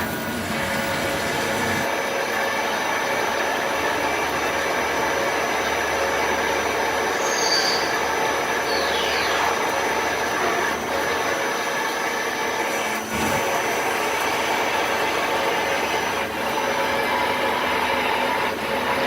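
Hardinge Conquest ST-20 CNC lathe running through a machining cycle: a steady mechanical whir with a few brief high squeals, some gliding downward, about seven to nine seconds in.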